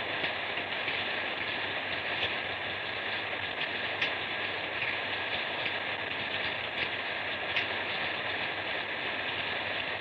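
Steady light rain falling on paving, a continuous hiss with a few sharper drop ticks.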